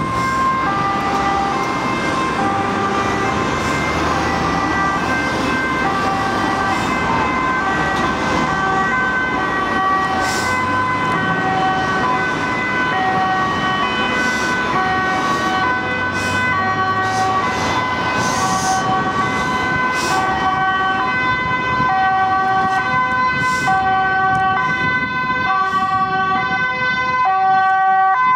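Dutch ambulance two-tone siren sounding on an urgent run, its pitch switching back and forth between two notes over road traffic noise. It grows a little louder near the end as the ambulance approaches.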